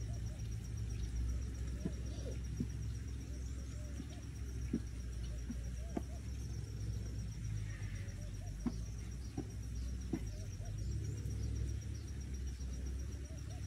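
Ostriches pecking feed from a ground bowl: a scattered handful of sharp knocks as their beaks strike the bowl. Under them run a steady low rumble, like wind on the microphone, and an insect's continuous high trill.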